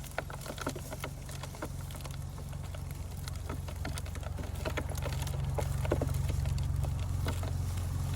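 A low, steady engine drone that grows louder toward the end, with scattered light crackles and taps over it.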